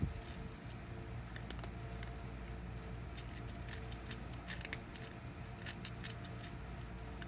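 A cat lapping water: scattered soft, wet clicks, some in quick clusters of two or three, over a steady low hum.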